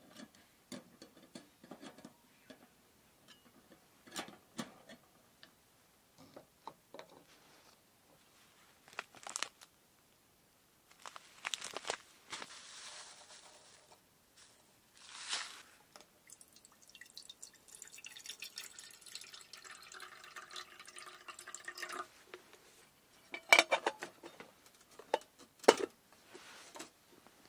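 Small clicks and knocks of camp cookware being handled, then several seconds of water being poured. Near the end come two loud metal clinks as the lid goes on a small metal kettle.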